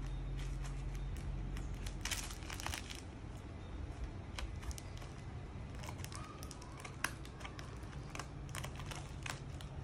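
Small scissors snipping into a plastic mailer, the plastic crinkling as it is cut and held: scattered short snips and crackles, with a cluster about two seconds in and a sharp snip about seven seconds in, over a low steady hum.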